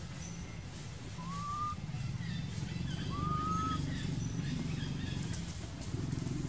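A bird calling twice: two short, clear whistled notes that each rise in pitch, over a steady low rumble in the background.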